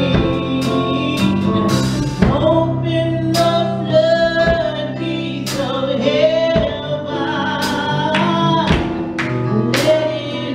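Praise and worship team singing a gospel song with band accompaniment: sustained, bending vocal lines over steady bass and keyboard notes, with cymbal or drum strokes about once a second.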